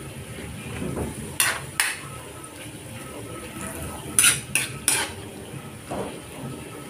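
A metal spatula stirring cubed pork in a metal wok, scraping and clinking against the pan about five times. The loudest clinks come in a cluster near the middle. A low frying sizzle runs underneath.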